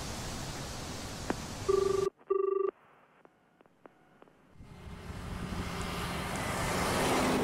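Steady road noise, then a telephone ring in the classic double burst, two short rings with a brief gap, about two seconds in. After a near-quiet pause with a few faint clicks, traffic noise swells as a bus comes along the road.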